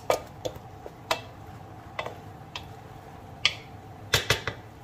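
Wooden spatula stirring chunks of kabocha squash, eggplant and shrimp in a metal wok, with irregular clicks and knocks against the pan. The loudest are two close knocks about four seconds in.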